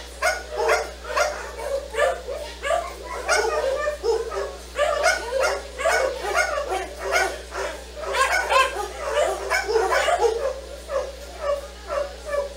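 Dogs barking and yipping over and over in short, quick barks, about three a second, without a break.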